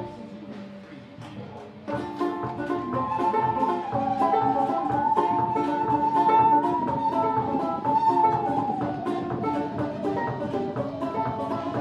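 Old-time string band playing: banjo and guitar picking with light drums, and a musical saw's smooth, gliding melody sounding over them. The music is quiet for about two seconds, then the full band comes in.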